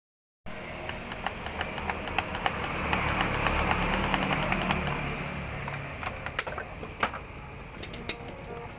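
Arcade claw machine at work: a steady motor hum with many irregular sharp clicks. The hum eases off about five seconds in.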